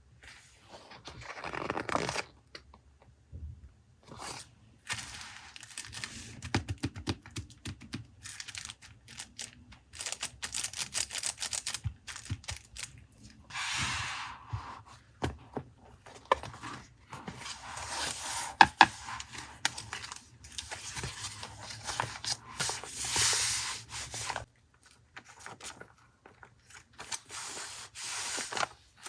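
Paper and stationery being handled for a journal collage: irregular rustling, tearing and rubbing, with many small clicks and taps.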